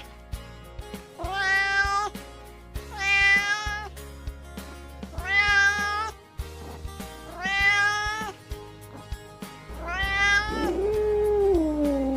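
Domestic cat meowing five times, about one every two seconds, each call rising then falling in pitch. Near the end a lower, drawn-out wavering yowl begins. Background music plays underneath.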